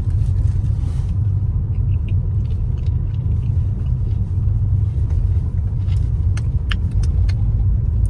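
Steady low rumble of a vehicle on the move, heard from inside the cab, with a few faint clicks near the end.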